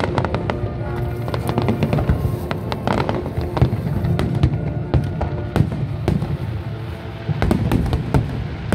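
Aerial fireworks shells bursting in quick succession, a dense run of bangs and crackles, with music playing alongside.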